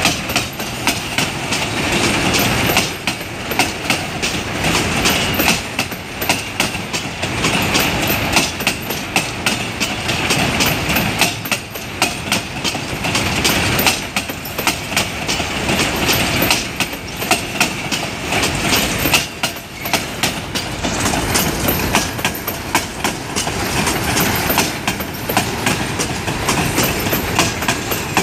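Freight train boxcars rolling past close by: steel wheels clacking rapidly over the rail joints amid a steady rolling rumble.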